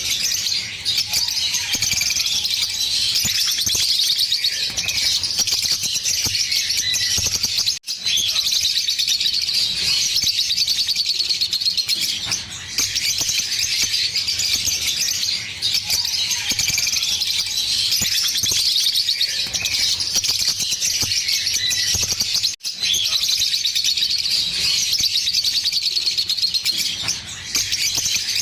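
A pair of green Fischer's lovebirds singing in a long, unbroken stream of rapid, high chirps and trills, the chattering 'giggle' song. It breaks off for a split second twice.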